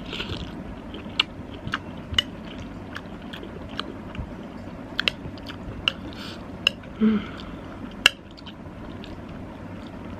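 A person chewing a mouthful of soft pasta soup, with frequent sharp wet mouth clicks, and a short hummed 'mm' about seven seconds in.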